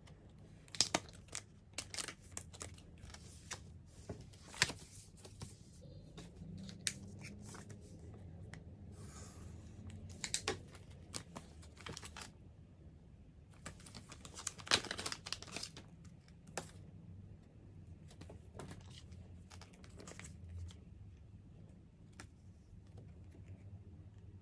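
Plastic and paper packaging of boxed merchandise being torn open and crinkled by hand, in clusters of sharp crackles with a brief tearing hiss near the middle.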